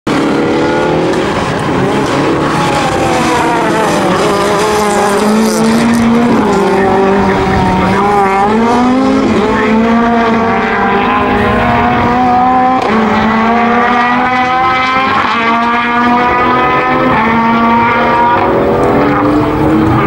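Ford Escort rally car's engine running hard, its note climbing under throttle and dropping at each gear change or lift, over and over.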